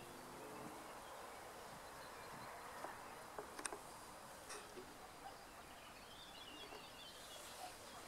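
Faint outdoor background noise: a steady, even hiss of distant ambience, with a few soft clicks a little before the middle and faint high twittering near the end.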